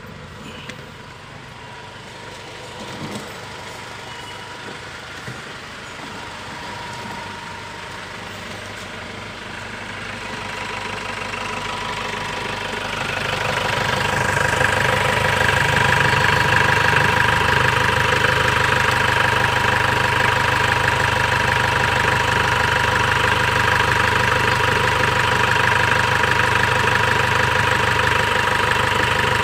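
Mahindra Xylo's diesel engine idling steadily. It is faint at first, then grows much louder from about halfway as it is heard close up in the engine bay.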